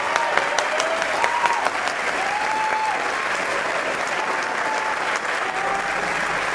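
Audience applauding steadily, an even wash of many hands clapping.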